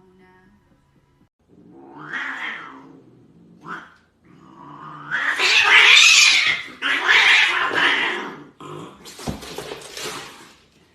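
A domestic cat yowling in several drawn-out calls, loudest about five to eight seconds in.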